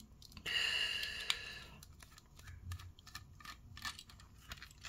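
A small screw being turned out of a plastic display base with a precision screwdriver: a squeaky scraping for about a second near the start, then faint small clicks and ticks.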